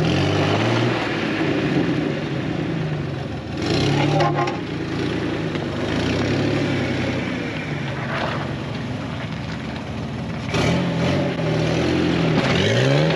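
Jeep TJ Wrangler engine working under load on an off-road climb, the revs swelling and falling several times, with harder pushes about four seconds in and again near the end.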